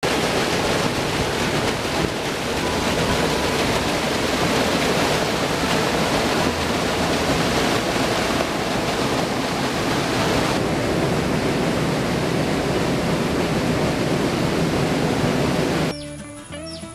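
Fast-flowing stream water rushing over rocks, a loud, steady, even rush. About a second before the end it stops abruptly and soft music with short chirps comes in.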